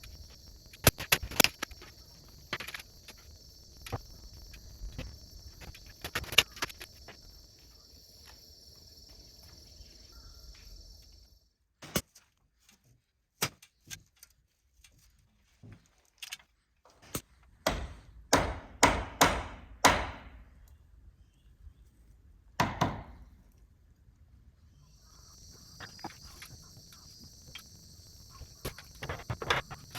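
Sharp wooden knocks and taps of oak pieces being handled and fitted, with a quick run of the loudest knocks a little past the middle. A steady high chirring of insects is heard behind them, dropping out for about a dozen seconds in the middle.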